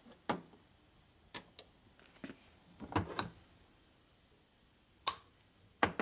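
A string of sharp metallic clinks and knocks, the loudest about three and five seconds in: a steel valve being fitted into an aluminium Harley Evo cylinder head while the head is picked up, tipped and handled on a steel workbench.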